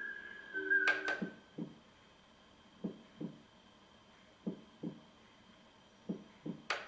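iDealSleep sound machine playing a heartbeat sound: soft, low double thumps about every second and a half. Sharp clicks near the start and near the end come as the sound is switched.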